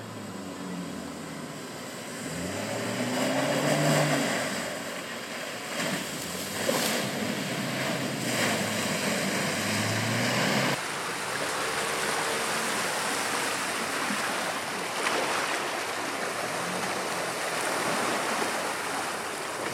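Land Rover Defender wading through muddy water: a steady rush and slosh of water pushed aside by the vehicle, with the engine note rising and falling underneath.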